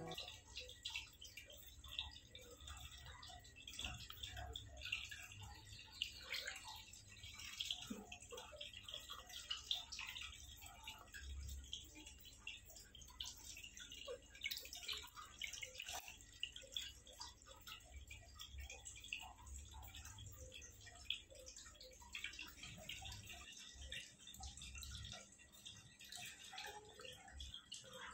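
Faint, irregular small splashes and drips of water in a shallow plastic tub as hands bathe a young green iguana.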